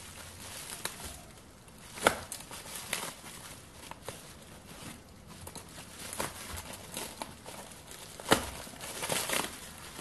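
Plastic bubble wrap being cut open and pulled off a metal part by hand: crinkling and tearing with scattered sharp crackles, the loudest about two seconds in and again near the end.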